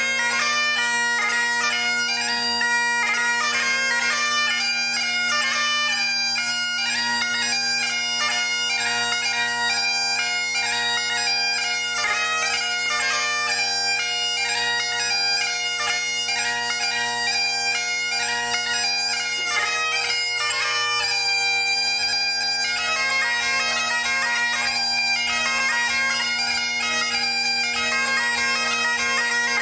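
Great Highland bagpipe played solo: the drones hold one steady tone while the chanter plays a quick, continuously moving melody.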